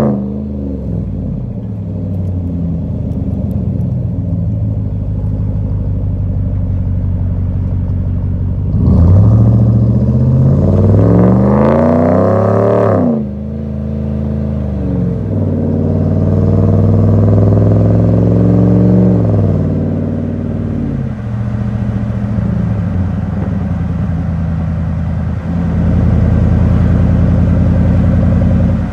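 Dodge Ram 1500's V8 running through a twin 3-inch cat-back exhaust with twin round mufflers and 5-inch tips, heard from the back of the truck while it drives. It rises in pitch as it accelerates about nine seconds in, drops suddenly at a gear change, pulls up again, and then settles to a steady deep cruise that grows louder near the end.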